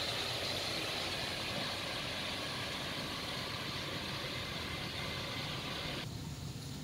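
Chicken and vegetables sizzling steadily in a covered wok. About six seconds in the sizzle cuts off abruptly, leaving a faint low hum.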